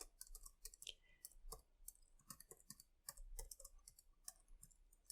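Computer keyboard typing: faint, irregular keystrokes, several a second.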